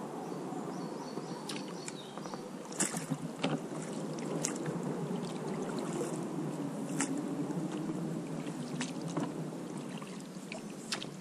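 River water rippling and lapping around an inflatable PVC boat drifting downstream, with scattered sharp clicks and knocks, a few close together about three seconds in.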